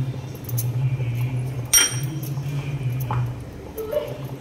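A metal spoon stirring broth in a pan, with one sharp ringing clink of metal on the pan about two seconds in. A steady low hum runs underneath, and a short rising squeak comes near the end.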